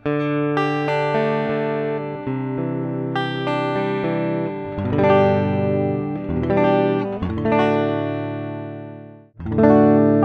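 Greco SE 600 Stratocaster-style electric guitar played clean and dry, without effects, on the middle pickup: picked chords ring out one after another. Near the end the sound breaks off briefly, then chords start again on the neck-and-middle pickup setting.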